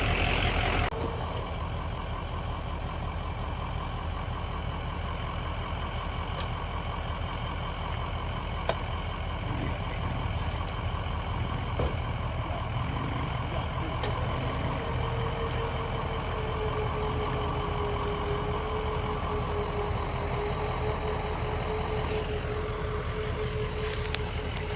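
Heavy engine running steadily, louder for about the first second and then settling lower. A steady whine joins about halfway through.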